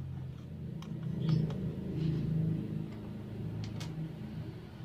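Low motor rumble with a steady hum, swelling about a second in and easing off near the end, like a vehicle passing. A few light clicks of a tiny metal spoon against a miniature copper pan.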